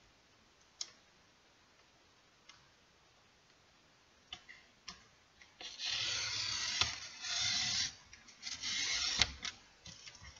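Paper trimmer cutting a thin strip of cardstock: a few light clicks as the sheet and cutter are set, then the sliding blade rasping along its rail for about two seconds, and again more briefly just after.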